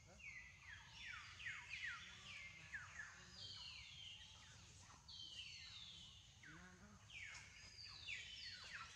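Faint chorus of overlapping bird calls, each a high whistle sliding downward, following one another several times a second.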